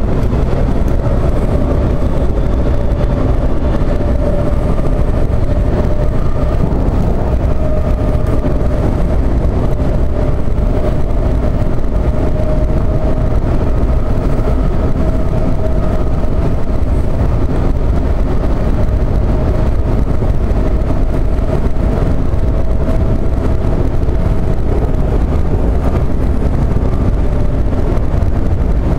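Subway train running steadily on surface track, heard from inside the front cab: a continuous low rumble of wheels on rails with a held whine that drifts slightly in pitch.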